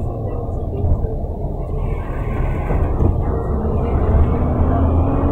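Steady engine and tyre rumble inside a van's cabin as it drives over a rough gravel road.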